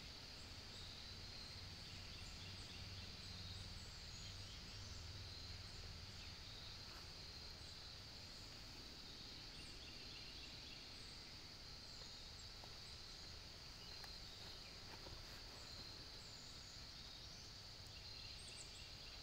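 Faint woodland ambience: a steady high-pitched insect drone under scattered short bird chirps, with a low rumble in the first few seconds.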